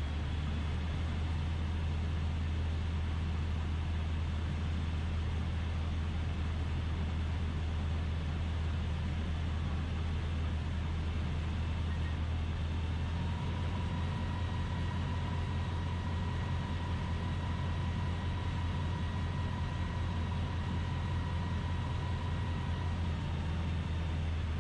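Steady drone of the DynAero MCR01 ultralight's piston engine and propeller with rushing airflow, heard inside the cockpit in flight. A faint steady high tone comes in about halfway through and stops shortly before the end.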